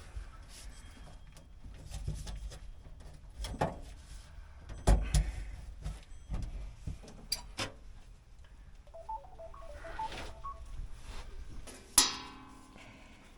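Scattered clicks and knocks of tools and metal electrical hardware being handled, with one sharp metallic clank about twelve seconds in that rings briefly as it fades.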